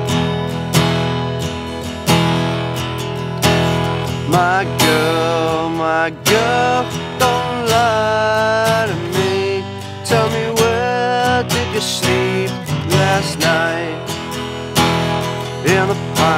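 Acoustic guitar strummed in a steady rhythm of chords, with a man singing over it for stretches.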